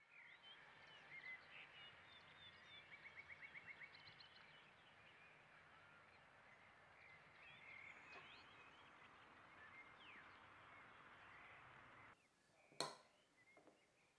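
Faint birdsong ambience over a soft outdoor hiss: several small birds chirping, with one fast trill of quickly repeated notes. It cuts off about twelve seconds in. After that come a couple of sharp clicks, a metal spoon knocking against a ceramic cereal bowl.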